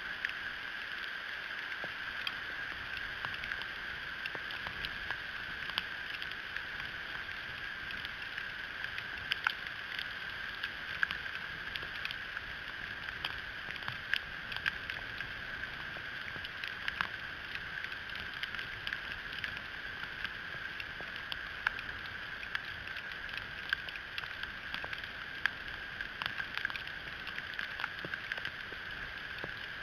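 Small ice pellets falling on the stick nest and the eagle's back: a steady hiss with many irregular, sharp little ticks as they strike.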